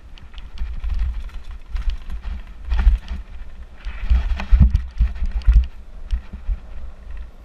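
Mountain bike descending a dirt trail: wind buffeting the helmet camera's microphone, with the bike rattling and clicking and the tyres crunching over loose gravel. Louder gritty surges come about three seconds in and again around four seconds.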